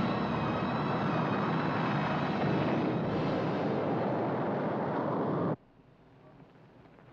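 Loud, dense rumble with steady high tones layered over it: a film sound effect of a meteor fragment striking. It cuts off abruptly about five and a half seconds in, leaving only a faint hiss.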